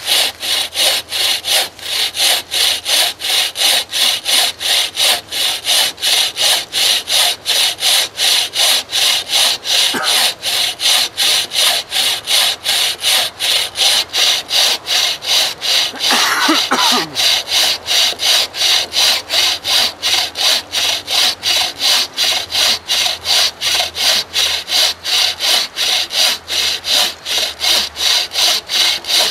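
Wooden-frame bucksaw cutting through a log of hard firewood: the blade rasps back and forth in steady, even strokes, a little under three a second.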